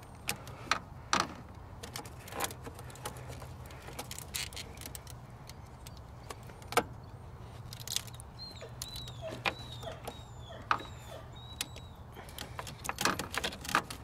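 Scattered light metal clicks and clacks as a cable-operated hose-clamp pliers is worked onto a radiator hose spring clamp, over a steady low hum. A run of short, high falling chirps comes in about eight seconds in and again near the end.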